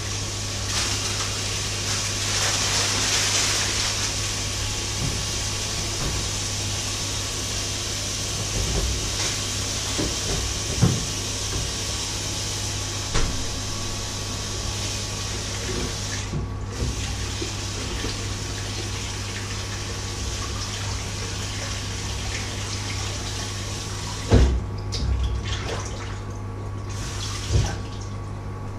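Kitchen tap running into a sink in a steady splashing hiss, which breaks off briefly about halfway and turns patchy near the end, where a few knocks of things set down in the sink are the loudest sounds. A steady low hum runs underneath.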